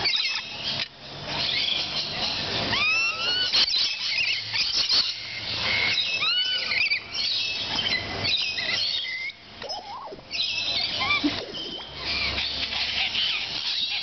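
A flock of rainbow lorikeets chattering and screeching, a dense shrill racket with a few short curved whistled notes among it.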